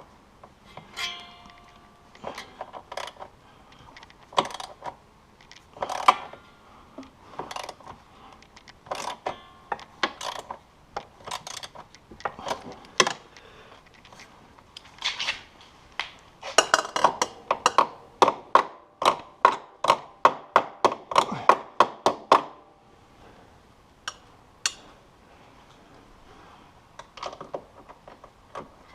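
Hand tools clicking and clinking on metal while working on a snowmobile exhaust, with scattered single clinks and, from about the middle, a steady run of about five clicks a second for several seconds.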